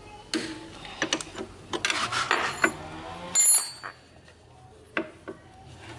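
Metal hand tools clicking and clinking as a socket on an extension bar is worked against a bolt in an old motorcycle's engine case. There are scattered clicks, a quick run of them around two seconds in, and a sharp ringing metal clink about halfway through.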